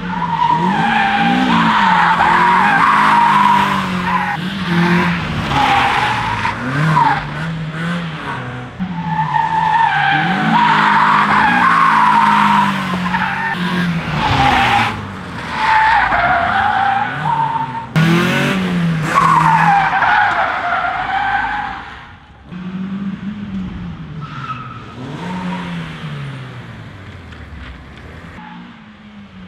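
Nissan S13 on a welded rear diff sliding, its tyres squealing in repeated waves while the engine revs rise and fall. The squeal and engine are lighter over the last several seconds.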